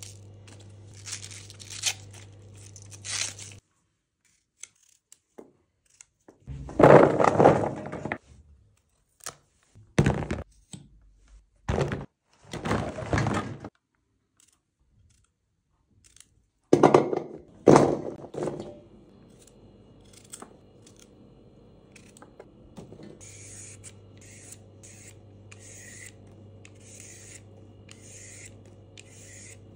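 Hands tearing and crinkling cabbage leaves apart, then loud cuts and knocks as Armenian cucumbers are trimmed with a small knife over a metal tray. Near the end comes a Y-shaped vegetable peeler scraping strips off a carrot in short, regular strokes, under a low steady hum.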